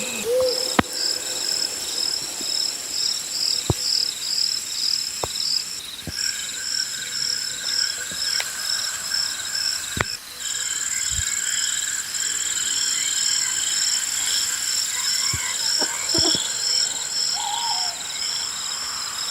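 Chorus of insects and frogs: several steady, high-pitched shrill trills, some pulsing, with a few scattered sharp clicks.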